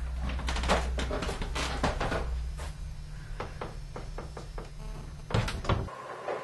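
A bedroom door's handle and latch being worked and the door eased open: a series of small clicks and knocks over a low hum, which cuts off suddenly near the end.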